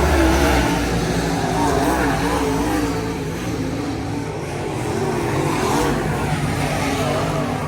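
Race car engines running on a track, several at once, their pitches rising and falling as the cars go around.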